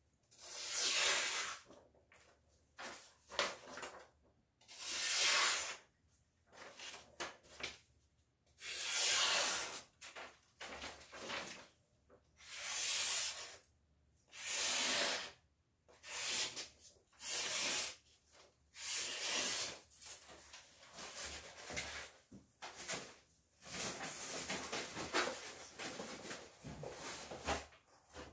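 Daiso kitchen knife's blade drawn in repeated rubbing strokes, most about a second long with short pauses between, running almost together in the last few seconds.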